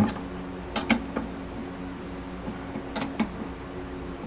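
Sharp metal clicks and taps of a wrench against the saddlebag's mounting bolts and nuts: one at the start, two about a second in and two near three seconds, over a steady low hum.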